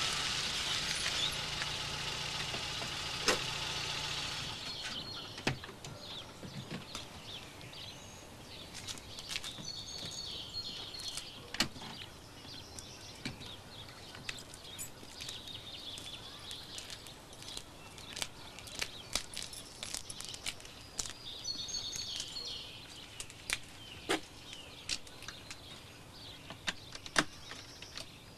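Volkswagen Golf engine running as the car pulls up, then switched off about four seconds in. After that, birds chirping in woodland, with scattered clicks and knocks, the loudest about twelve seconds in.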